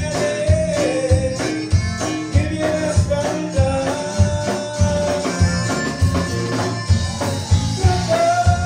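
Live Tejano conjunto band music with a steady drum beat and a moving melody line.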